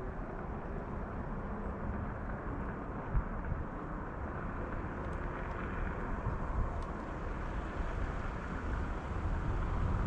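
Steady low outdoor rumble with no distinct event, and a couple of faint ticks in the middle.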